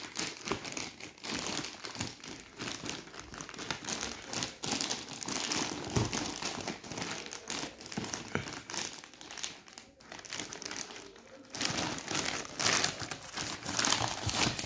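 Thin plastic courier mailer bag crinkling and rustling as hands handle it and work it open, with a dull thump about six seconds in and a louder stretch of crinkling near the end.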